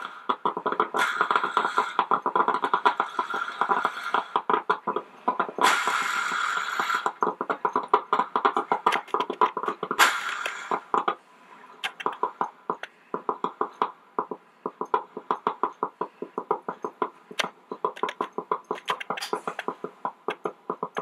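Melitta Gevalia BCM-4C four-cup drip coffee maker gurgling and sputtering as the last water boils up through its heater at the end of the brew cycle: rapid pops several times a second, with three bursts of hissing steam in the first half. It thins out after about eleven seconds.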